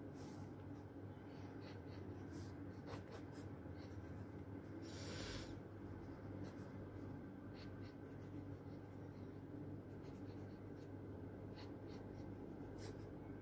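Faint strokes of a drawing tool on paper, with scattered small ticks and one longer scratchy stroke about five seconds in, over a steady low room hum.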